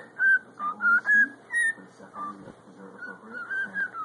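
Cockatiel whistling a run of short, clear notes, several a second. The notes are loud for about the first two seconds and softer after that.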